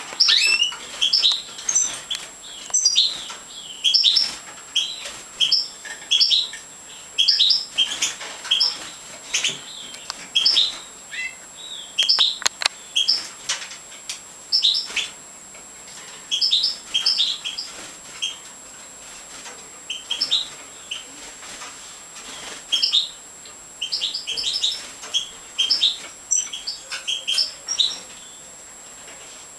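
Major goldfinches (Carduelis carduelis major) calling: short, high chirps in quick twittering clusters, repeated every second or so with brief pauses.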